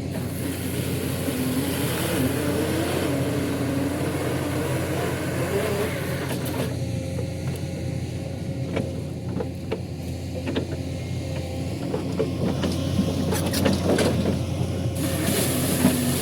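Diesel engine of a heavy forestry machine running steadily, its pitch wavering a little as it works, with a few short clicks and knocks.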